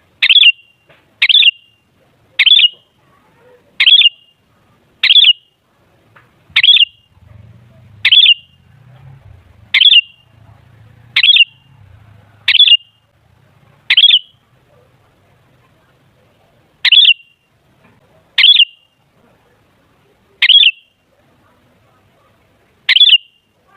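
Sooty-headed bulbul (kutilang) giving a short, sharp call over and over, one every second or two, with a pause of a few seconds partway through. This is a lure call used to set other bulbuls calling.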